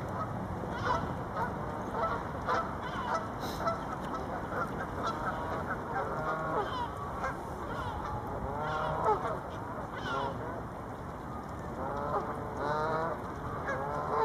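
Canada geese honking: many short calls all through, some coming in quick runs of several.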